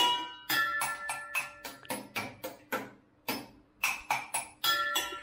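A metal spoon tapping stainless steel pots and bowls in a quick improvised drumming rhythm, about three strikes a second. Each strike rings with a bright metallic tone, and the different vessels give different pitches.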